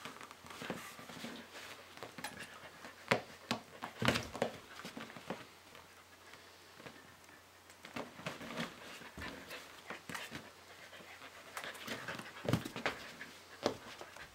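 Border collie panting, broken by irregular sharp clicks and knocks, the loudest about 3 and 4 seconds in and twice near the end.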